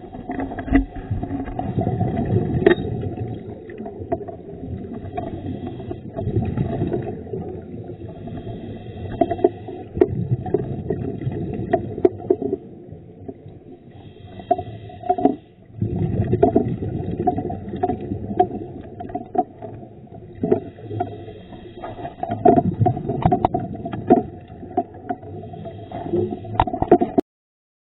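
Underwater noise picked up by a diver's camera: low rumbling water and bubble noise with scattered clicks, swelling and fading every few seconds like a scuba diver's breathing and exhaled bubbles. It cuts off abruptly near the end.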